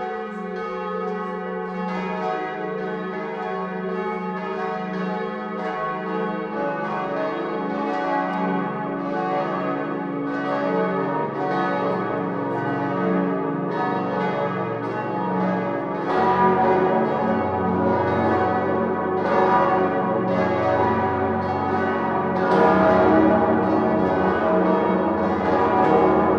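Salzburg Cathedral's swinging church bells, a peal tuned in a minor motif, ringing together. Deeper bells join one after another about six, twelve, sixteen and twenty-two seconds in, and the peal grows louder as it builds toward the full seven-bell ringing.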